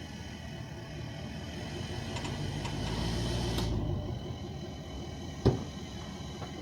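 A single sharp knock about five and a half seconds in, from a wooden leveling block put down in a pickup truck's bed. Under it a steady background hum, with a low rush that swells and fades a couple of seconds in.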